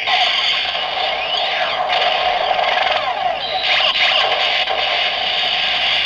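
Neo Decade Driver toy belt's speaker playing the electronic transformation effect that follows its Build Genius Form call: a steady, crackly, whooshing sound with a few sweeping pitch glides, about two seconds in and again near the four-second mark.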